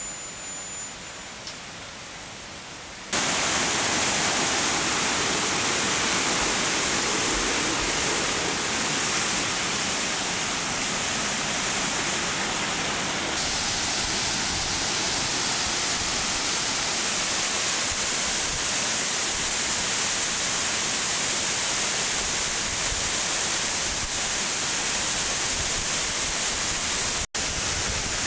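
Waterfall at Shiraito Falls: a steady, loud rush of falling water that starts suddenly about three seconds in after a quieter stretch. It cuts out for an instant near the end.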